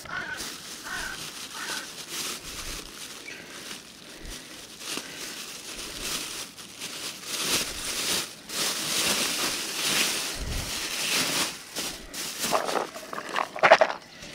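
Thin plastic carrier bag rustling and crinkling as hands open it and rummage inside, loudest in the middle of the stretch.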